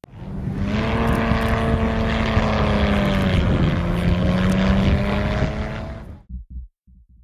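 A loud engine passing by, with a steady hum of several tones whose pitch drops slightly about halfway through as it goes past. It fades out quickly a second before the end.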